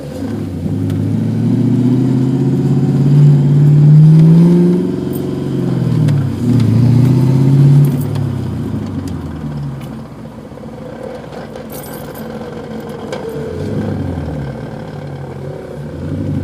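1996 Mustang SVT Cobra's 4.6-litre DOHC V8 heard from inside the cabin under acceleration. The revs climb for about five seconds, drop at a gear change, climb again, then ease off to a lower steady drone. The car is being driven to show a transmission rattle and grind in its T45 gearbox.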